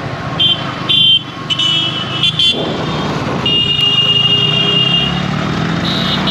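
Yamaha R15 V3 motorcycle engine running under way in traffic, while a vehicle horn beeps several times in short honks and then gives one longer blast about three and a half seconds in.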